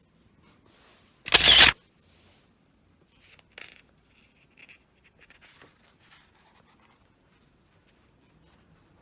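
Pages of a large, thick photobook being turned: one loud paper swish about a second and a half in, then faint rustling and light handling of the paper.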